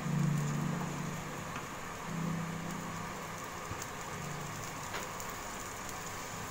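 Minced beef and green tomato slices sizzling steadily in a nonstick frying pan over a gas flame, with a few light clicks from a wooden spatula.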